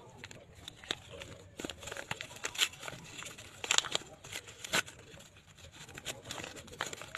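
Thin paper envelopes being opened and unfolded by hand: irregular crinkling and rustling with sharp paper crackles, loudest a little before 4 seconds in and again near 5 seconds.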